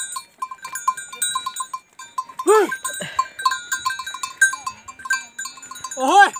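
A ploughman shouting short calls to his yoked oxen, twice, a few seconds apart. Behind the calls runs a fast, even ticking.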